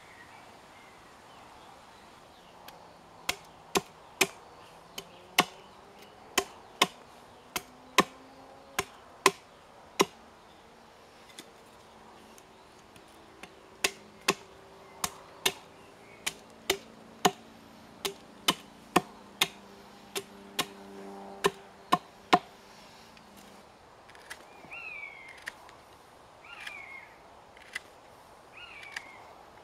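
Small axe chopping a green stick against a log: sharp, separate knocks about two a second, with a short pause about halfway through.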